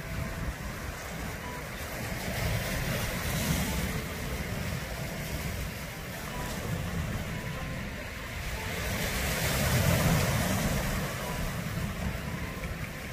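Small sea waves breaking and washing over a rocky, pebbly shore, with wind buffeting the microphone as a low rumble. The surf swells to its loudest about ten seconds in.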